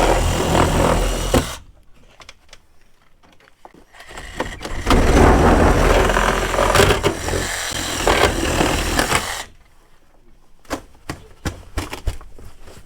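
Reciprocating saw cutting through the ute's sheet-metal cab roof in two runs. The first cuts off abruptly about a second and a half in, and the second runs from about four seconds to nine and a half, with light clicks and knocks in the pauses.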